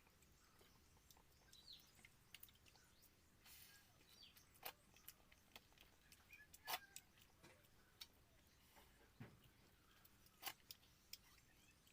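Near silence: faint outdoor ambience with a few soft clicks and faint bird chirps.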